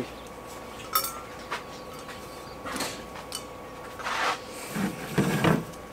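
Handling noises: a few light clicks and knocks, then rustling and scraping from about four seconds in as a plastic jar of boat-bottom coating is gripped and lifted off a metal hull. A faint steady hum runs underneath.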